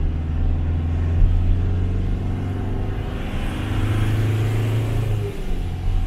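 Isuzu D-Max pickup's engine pulling up a steep mountain grade, a steady low drone. About three seconds in the revs and pitch step up, then settle back down a little after five seconds.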